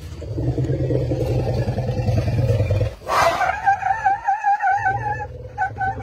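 Asian elephants calling to each other: a low, rough rumble for about three seconds, then a high, wavering squeak about two seconds long, then more low rumbling with short high chirps near the end.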